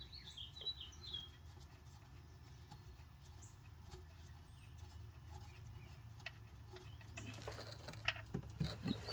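Faint bird chirps in the first second or so, then small clicks and rustles near the end from the oil drain plug being unscrewed by hand.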